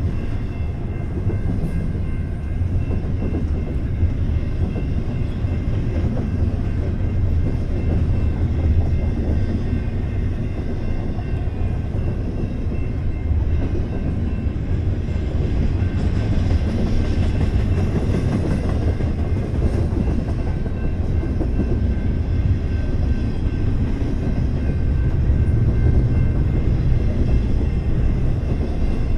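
Double-stack intermodal freight train's loaded well cars rolling past: a steady, unbroken rumble of steel wheels on rail.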